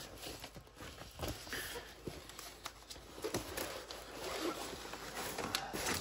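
A diamond-painting canvas and its clear plastic cover rustling and crinkling as they are handled and rolled up, with scattered light taps and knocks.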